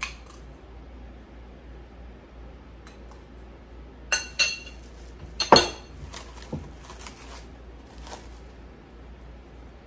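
Tableware clinking: a metal spoon against a ceramic bowl and glass bottles being handled on a table. A few sharp, ringing clinks come in the middle, the loudest about halfway through, with fainter knocks after.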